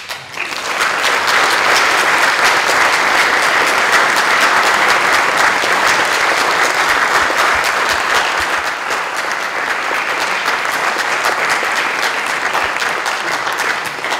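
Audience applauding in a lecture hall, sustained many-handed clapping that builds within the first second and eases off near the end.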